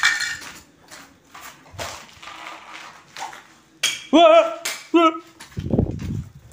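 Scuffs and knocks of footsteps and handling on brick stairs, then about four seconds in two short wavering cries like a person crying, followed by a low thud-like rumble near the end.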